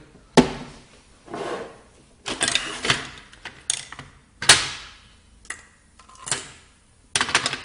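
Handling of a Krups Nespresso coffee machine and its used capsule: a string of sharp clicks and knocks with scraping and rustling between them, the loudest about half a second in and about four and a half seconds in.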